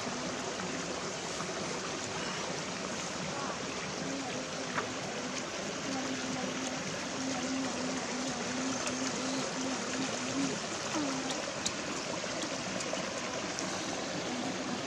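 Shallow rocky stream running over stones: a steady rush of water.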